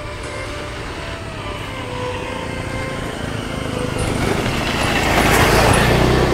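A motor vehicle approaching and passing close by, growing louder to a peak about five and a half seconds in, then starting to fade.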